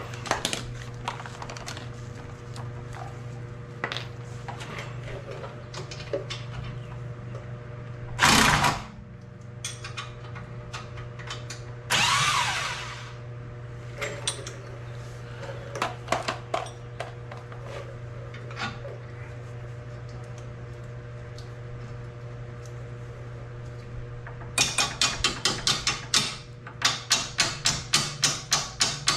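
Impact wrench on a strut bolt, fired in two short bursts about eight and twelve seconds in, the second winding down with a falling pitch. About twenty-five seconds in it starts a long run of rapid, evenly repeated hammering blows. A steady low hum and scattered clinks of tools run underneath.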